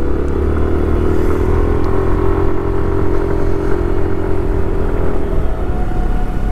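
Yamaha Aerox 155 scooter's single-cylinder engine running at steady throttle, with a steady low rumble beneath it. The engine note eases off about five and a half seconds in.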